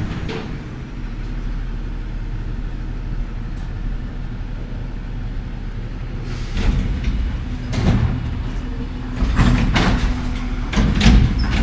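Garbage truck's engine running with a steady low rumble. It grows louder about six and a half seconds in, with knocks and clanks near the end.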